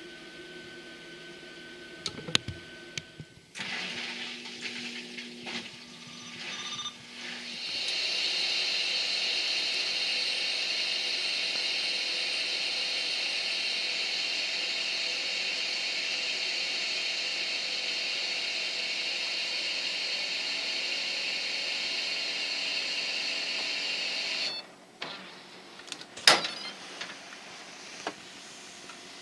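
Compressed air blowing the water out of an RV's plumbing through an open outlet: a steady hiss for about sixteen seconds that cuts off suddenly when the outlet is closed, with clicks and knocks of handling before and after.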